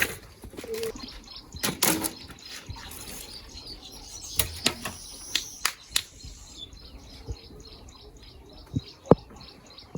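Small birds chirping in quick, repeated high notes, most steadily in the second half, over a series of sharp knocks and clicks, the loudest a little after 9 seconds.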